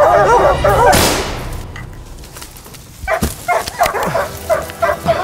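Hunting hounds baying at a treed bear. About a second in, a single big-bore air rifle shot cracks with a sharp hiss, and the baying breaks off. From about three seconds in come sudden thumps and crackling, and the hounds bay again near the end.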